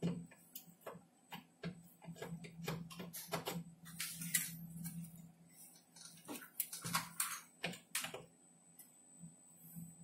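Irregular light clicks and taps of a hand tool and small parts being handled against a monitor's sheet-metal chassis, over a faint steady low hum.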